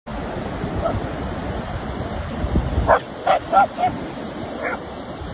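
A dog barking in short yips, about four in quick succession around three seconds in and one more a little later, over a steady hiss of wind and surf.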